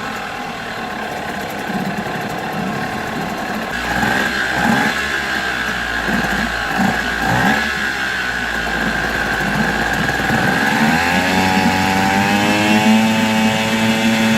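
Nissan 5 hp two-stroke outboard motor running, its exhaust bubbling out underwater. About three quarters of the way through it is throttled up: the engine note rises and then holds steady at a higher speed.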